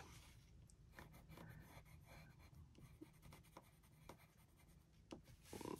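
Faint scratching of a pencil moving over paper in short, scattered strokes, with a few light ticks, slightly louder near the end.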